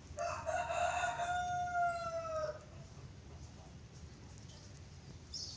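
A rooster crowing once: one long, held call lasting about two and a half seconds, falling slightly at the end.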